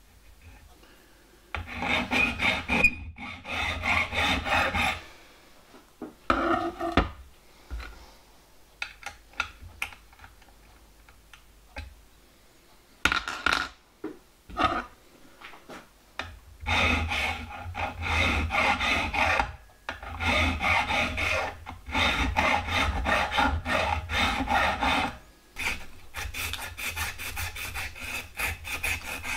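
Hand file rasping on a small metal part held in a vise, in several runs of strokes with short pauses between them. About three-quarters of the way through, the sound changes to faster back-and-forth rubbing of an abrasive cloth strip pulled around the part to smooth its rounded end.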